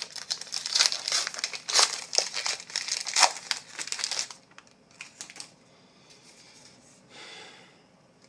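Trading-card pack wrapper crinkling and tearing as it is opened, for about four seconds, then a quiet stretch with a soft brief swish near the end.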